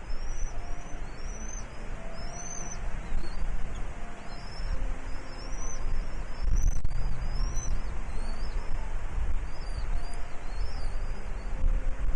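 A bird calling in a steady series of short, high chirps, each rising then falling, about one and a half to two a second, over a low wind rumble on the microphone.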